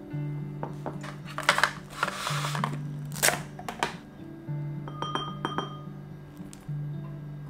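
Soft background music over kitchen handling sounds: a small glass dish clinking down on the counter, then plastic wrap pulled from its box with a crackling rustle and a sharp snap about three seconds in.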